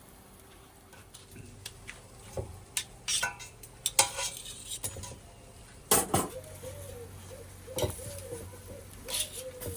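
Metal cooking utensils clinking and scraping at a grill, in scattered sharp clanks. In the second half there is a run of short squeaks that rise and fall.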